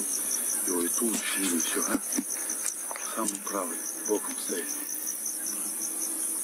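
Crickets chirping: a steady, rapid, high-pitched pulsing trill, with faint low murmured voices now and then.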